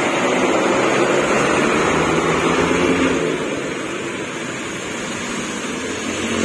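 Intercity coach bus passing close on a wet road: its engine running and its tyres hissing on the wet asphalt, fading as it pulls away after about three seconds. Another vehicle comes up louder near the end.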